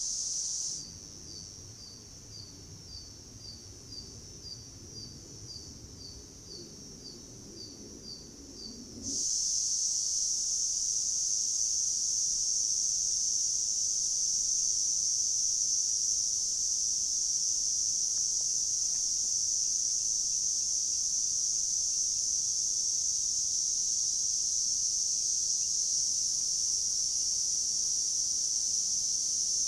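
A steady, high-pitched drone of insects that carries on unbroken. For the first several seconds it is quieter, and a faint high chirp repeats about twice a second over a low rumble. About nine seconds in the drone comes back loud.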